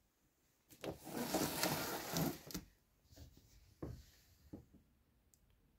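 Handling noise around a large cardboard box: a rustling scrape starting about a second in and lasting about two seconds, then a few light knocks.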